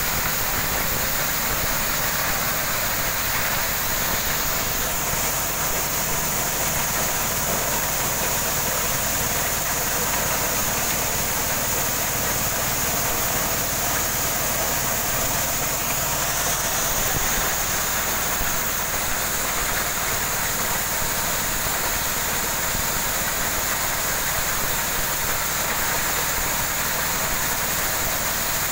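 Corn sheller running under load, driven by a small stationary engine that runs steadily, with the dense rattling rush of maize cobs being threshed and kernels pouring from the chute.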